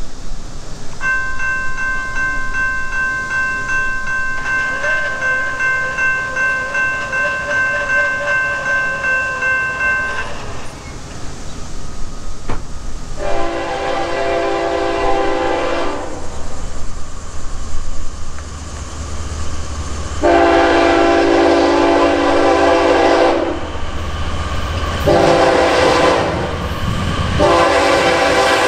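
Grade-crossing bell ringing rapidly for about ten seconds, then the horn of a BNSF GE ES44C4 locomotive sounding the grade-crossing signal: two long blasts, a short one, and a final long one that runs on. Under the horn, the low rumble of the approaching freight train grows.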